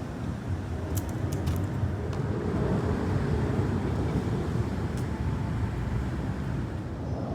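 Steady low engine drone of outdoor city background noise, with a few sharp knocks about a second in and again near five seconds.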